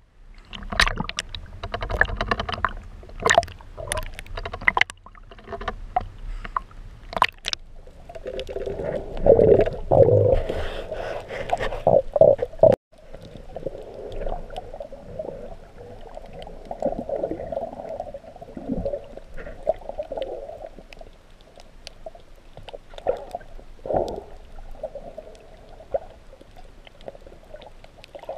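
Choppy sea water splashing and slapping against a GoPro's waterproof housing at the surface, then a louder muffled rush as the camera goes under. It ends in muffled underwater water noise heard through the housing, with a few soft knocks.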